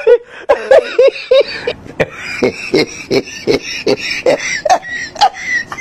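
A person's voice making short, rhythmic pitched sounds mixed with sharp clicks, about two or three a second.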